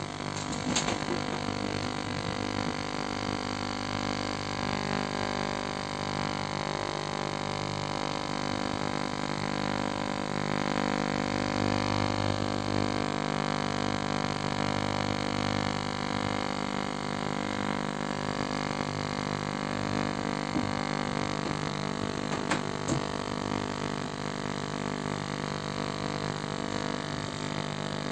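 VLOXO CD-2800 ultrasonic cleaner running, a steady hum with many overtones, partway through a three-minute cycle stripping paint from plastic miniatures.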